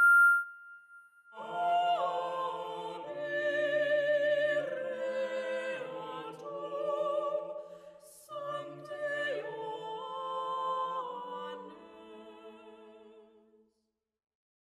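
A steady high pure tone cuts off about half a second in. Then voices sing slow sustained chords with vibrato, the harmony shifting every second or two, and fade out near the end.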